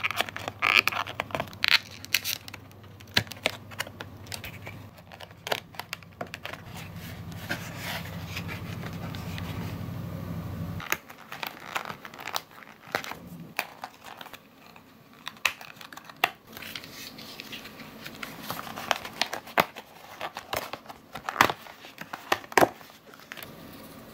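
Die-cut paper-craft cardboard pieces being pressed out of a printed card sheet and handled: crinkling and tearing of thin card with many irregular sharp snaps and clicks.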